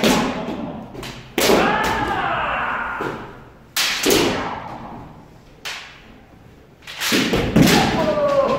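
Kendo practice: sharp thuds of bamboo shinai strikes and stamping footwork, about five in all, with two long drawn-out kiai shouts during men (head) strike drills.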